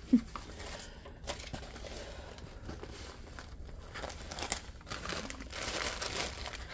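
Clear plastic film and canvas of a rolled diamond painting crinkling and rustling as it is unrolled and handled, with a denser stretch of crinkling near the end.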